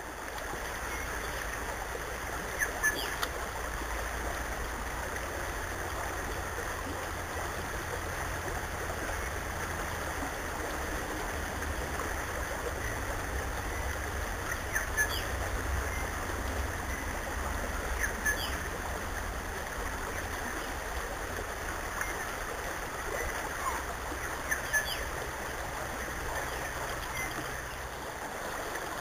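Steady rush of flowing river water, with a few brief high-pitched clicks scattered through it.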